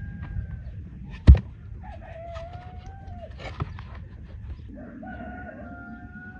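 A rooster crowing three times in long held calls. About a second in comes a single sharp wooden knock, the loudest sound, with a lighter knock later, as heavy log rounds are set upright against each other.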